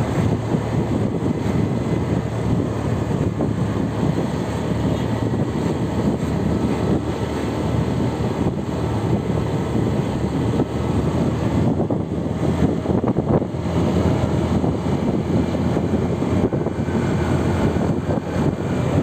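Steady rumble of a moving vehicle's road and engine noise, with wind buffeting the microphone.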